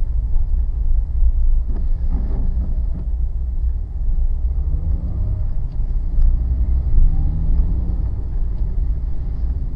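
Low rumble of a car driving slowly on a wet road, heard from inside the cabin, with the engine pitch rising a couple of times in the second half.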